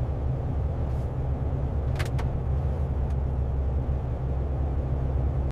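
Steady low rumble of a running vehicle, with a couple of faint clicks about two seconds in.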